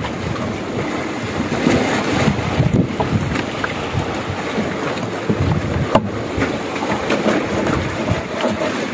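Steady wind and sea noise around an open fishing boat, with wind buffeting the microphone. A few light knocks are heard, one plain one about six seconds in.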